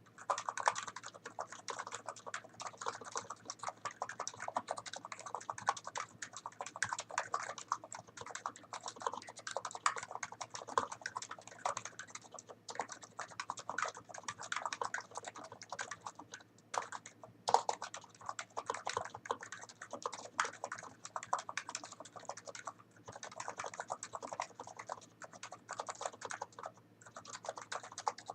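Typing on a NIZ Plum Nano 75 keyboard with 45 g electro-capacitive switches and PBT keycaps: a fast, even run of deep, thocky keystrokes with a few brief pauses. One stroke a little past halfway is louder than the rest.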